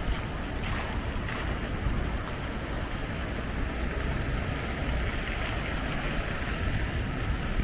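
Storm wind buffeting the microphone, a steady low rumble under a constant hiss.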